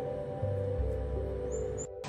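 Soft ambient background music with long sustained notes over a slowly changing bass line.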